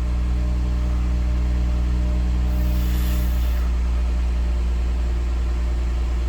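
2004 Chevrolet Trailblazer's 4.2-litre straight-six idling steadily, just started after an oil change. A short soft hiss comes in around three seconds in.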